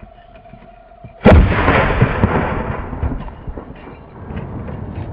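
A consumer firework goes off on the ground with a sudden loud bang about a second in, after a faint steady tone. A long spell of crackling and hissing follows, full of small pops, which fades and then swells again near the end.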